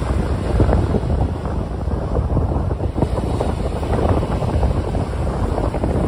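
Small waves breaking and washing up a sandy beach, mixed with wind buffeting the microphone, a low, uneven rumble.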